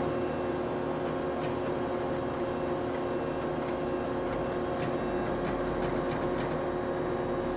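Marvel 81A vertical band saw running, with a steady machine hum of several held tones while its hydraulically powered blade guide is worked from the control panel. A few faint ticks sound, and a low rumble joins about five seconds in.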